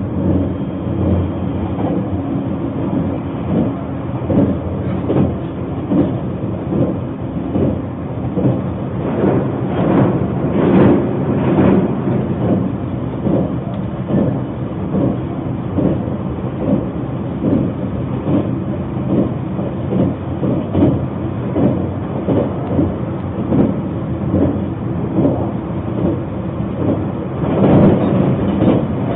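Narita Express train running at speed, heard from inside the passenger cabin: a steady rumble of wheels on rail, with frequent short knocks from the track. The knocks grow louder and busier for a couple of seconds around ten seconds in and again near the end.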